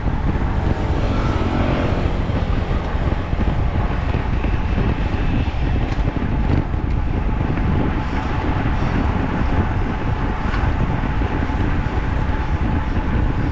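Steady wind and road noise heard from a moving rider's camera, mostly deep rumble, with a brief faint pitched whine about a second in.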